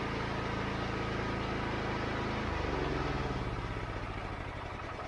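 Wood-Mizer LX25 sawmill's engine running steadily. A little over two seconds in its pitch drops and it slows, fading toward the end as it winds down after the cut.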